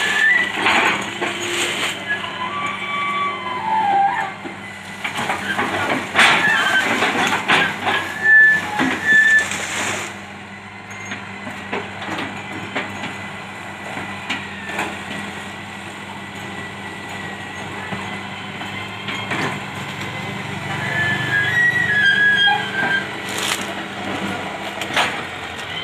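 Old Hitachi UH07 excavator's diesel engine running steadily while its bucket tears down and crushes banana trees and brush, with repeated cracking and snapping of stems and leaves. The crashing is loudest in the first ten seconds, then the engine hum carries on with scattered cracks.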